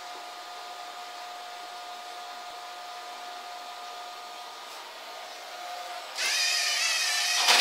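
Lego NXT floor-cleaning robot's small electric motors whining steadily. About six seconds in, a louder, higher motor whine with a wavering pitch starts and runs on.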